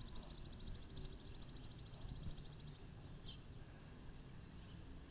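Faint rural outdoor ambience: a low, steady rumble, the distant roar likened to a thousand hot rods on a racetrack far away, with a high, fast-pulsing trill that fades out about three seconds in.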